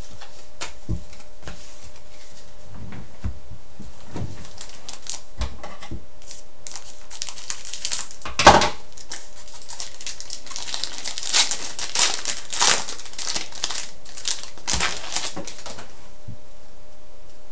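A trading-card pack wrapper crinkling and tearing as it is cut open with scissors and pulled apart, with one sharp crackle about eight seconds in. Before that, cards being set down on a table with light taps.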